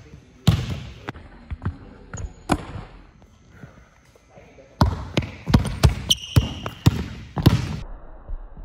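Basketball bouncing on a hardwood gym floor: a few single bounces, then a quick run of dribbles starting about five seconds in.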